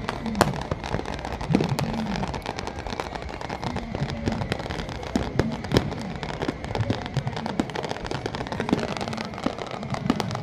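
Fireworks display: repeated sharp bangs and crackling bursts at irregular intervals, over a steady background din.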